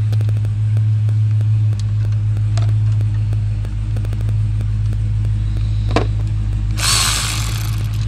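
Steady low hum, with a few light clicks and a single knock about six seconds in from hand work on the ABS module's mounting screws, then a short burst of hiss near the end.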